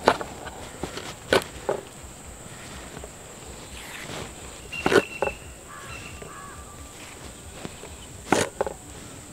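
A few sharp knife chops on a wooden cutting board, cutting tomato and moringa drumstick pods into pieces: one at the start, two about a second and a half in, a cluster about five seconds in and two more near the end. A steady high insect drone runs underneath.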